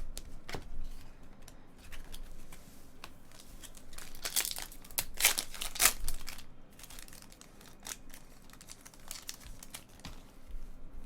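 Trading-card pack wrappers being torn open and crinkled: a run of short rustles and clicks, loudest in a stretch a little before the middle.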